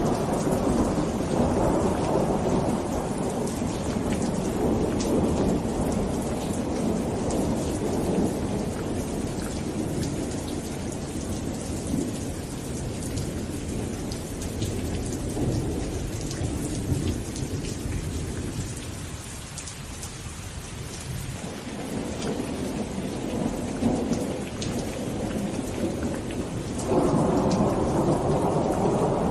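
Steady rain falling with low rumbling thunder that swells and ebbs, thinning out about two-thirds of the way through and coming back strongly near the end.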